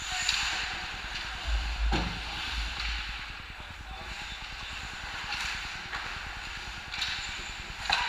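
Ice hockey skates scraping and carving the ice in repeated swelling surges. About two seconds in comes a sharp knock from a stick, the puck or the boards, over a brief low rumble.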